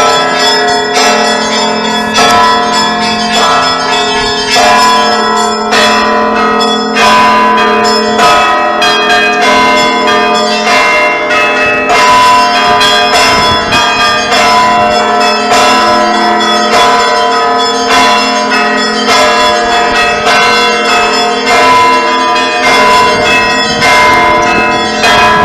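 Church bells of several different pitches ringing in a continuous peal. The bells are struck over and over so that each stroke rings on under the next.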